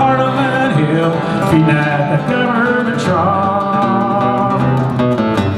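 Acoustic guitar strummed under singing, a country-style folk song.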